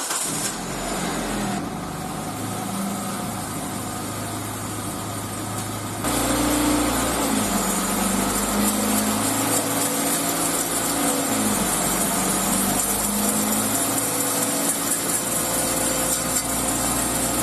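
Raised car wheel spinning with a steady scraping rub over a humming drone whose pitch rises and falls, stepping louder about six seconds in. The rub sounds like brake pads dragging on the disc but comes from a bent steel dust shield touching the brake disc.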